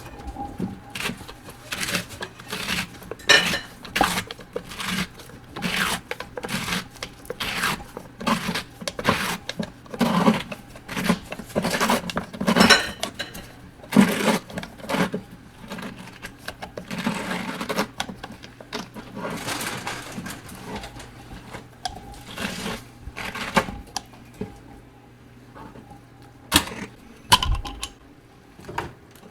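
Knife cutting food on a cutting board: irregular strokes and clacks of the blade against the board, with a few kitchen handling noises.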